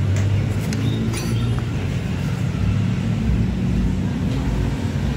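Steady low drone of a running engine, with a couple of light clicks about a second in.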